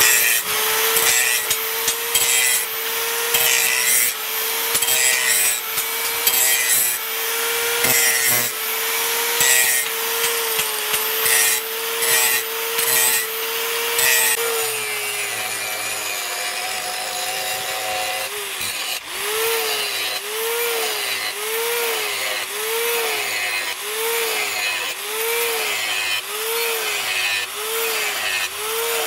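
Electric angle grinder with a sanding disc grinding a steel knife blade forged from a leaf spring, the disc scraping against the metal. The motor whine holds steady for about the first half. From about two-thirds of the way in, its pitch rises and falls about once a second as the disc is worked along the blade in strokes.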